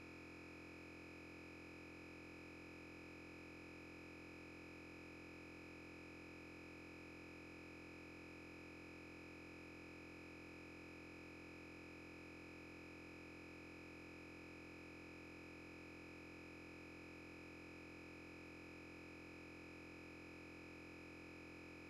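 Near silence: only a faint, perfectly steady electronic hum.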